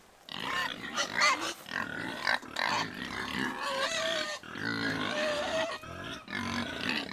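A group of hungry pigs vocalising continuously, a dense noisy chorus with several drawn-out squeals.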